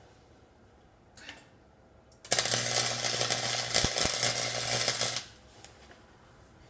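Electric welding arc crackling for about three seconds, tack-welding a steel tip onto an exhaust header pipe, with a steady hum underneath. It starts a little over two seconds in and cuts off sharply when the arc is broken.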